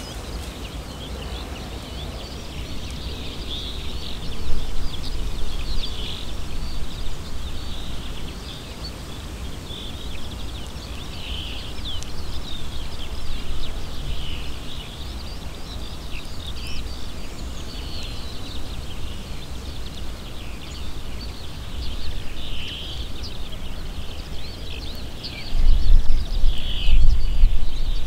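Small birds chirping and twittering over one another in a steady chorus, over a low rumble that grows loudest near the end.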